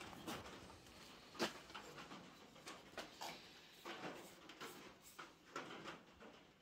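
Faint, irregular swishing of a paintbrush stroking wood finish onto a bare black walnut gun stock, with one sharp click about a second and a half in.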